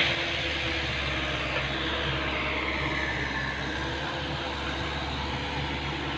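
Hino Mega dump truck's turbocharged diesel engine running steadily as the truck pulls away. A high whistle slides down in pitch between about two and three and a half seconds in.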